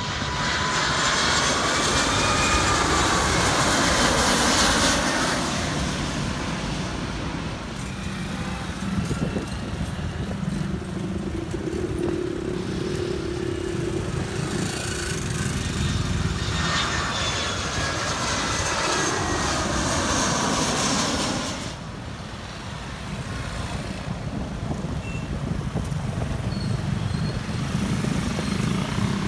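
Jet airliner engines passing low overhead: a loud roar with shifting whine tones, heard twice, in about the first five seconds and again from about 16 to 21 seconds, where it cuts off suddenly. Road traffic rumbles underneath throughout.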